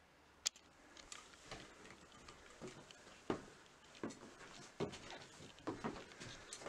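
Faint, irregular knocks and soft thuds, about one every three-quarters of a second, with a sharp click about half a second in.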